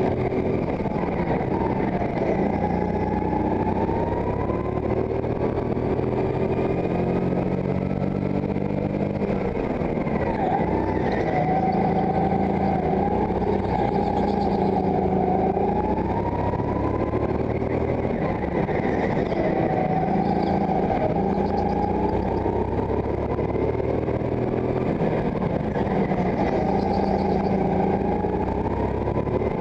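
Go-kart engine running hard, its pitch rising and falling again and again as the kart accelerates out of each corner and lifts off for the next.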